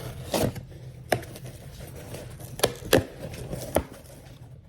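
A parcel being handled and opened by hand: about five sharp knocks and taps as the packaging and the small boxes inside are moved about.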